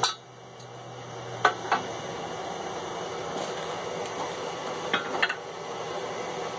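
Light metallic clinks of steel pieces knocking together, in two quick pairs, over a steady background hiss.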